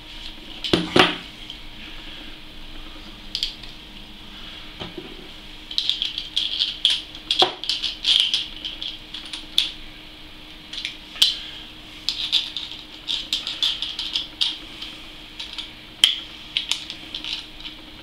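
Metal compression fittings and a flat spanner clicking and clinking against a Phobya DC12-220 water-cooling pump as the fittings are tightened a quarter turn past finger tight, with a few sharper knocks.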